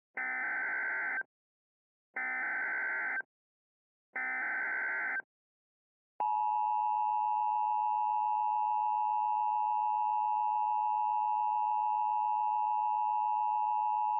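Emergency Alert System tones: three separate one-second bursts of SAME digital header data, then the steady two-tone EAS attention signal from about six seconds in, signalling the start of a new emergency alert.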